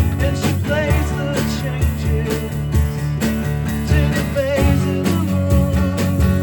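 A band playing a song in rehearsal: strummed guitars on a steady beat, with a wavering, held melody line over them.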